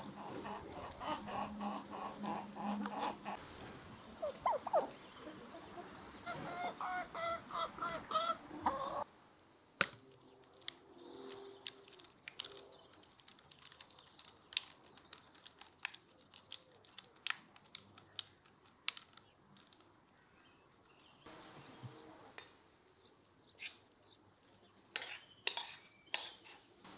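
Farmyard poultry calling: chickens clucking, with a goose among them, in many short calls. About nine seconds in these stop, giving way to quieter wet squelches and sharp clicks of hands kneading minced liver in a plastic bowl.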